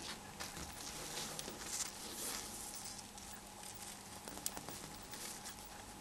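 Faint scratching and a few light clicks from small hand tools handling a phone's flex module and adhesive, over a low steady hum.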